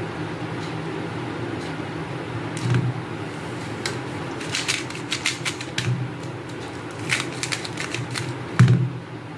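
Magnetic 3x3 speedcube being turned by hand: irregular runs of quick plastic clicks and clacks, densest in the second half, over a steady low hum.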